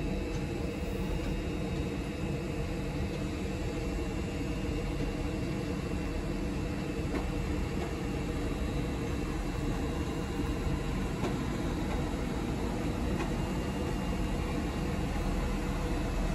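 Northern diesel multiple unit passing slowly close by, its underfloor diesel engines running with a steady low hum and a faint high whine.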